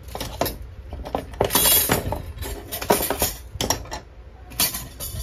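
Metal tools clinking and knocking together as they are handled and set down: a run of sharp clanks with short ringing, loudest about a third of the way in.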